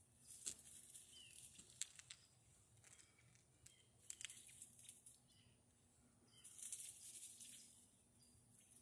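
Faint rustling and sharp ticks in dry leaf litter, the loudest about half a second in and near two seconds in, with a few soft, high chirps: quail moving and foraging under a bush.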